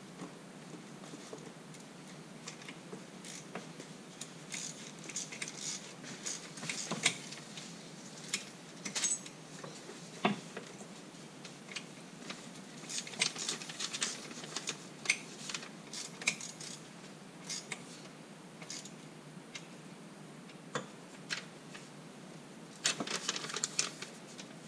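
Small metal clinks, clicks and taps of hand tools and fittings being handled while working on a stern drive's trim ram mounting, coming irregularly, with a sharper knock about ten seconds in and a quick run of clicks near the end.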